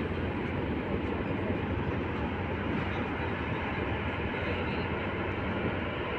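A steady, even rumble of mechanical noise with no separate strokes or changes.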